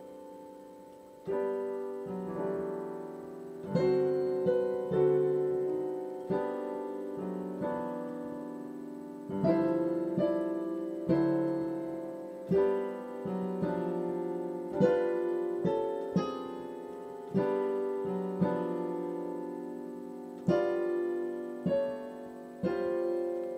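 Solo piano playing a slow passage. Notes and chords are struck about once a second, each left to ring and fade.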